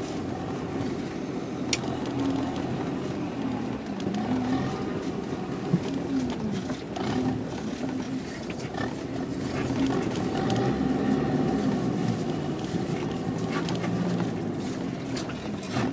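A 4x4's engine running while driving, heard from inside the cabin, its pitch rising and falling as the throttle changes, with a couple of brief knocks in the first six seconds.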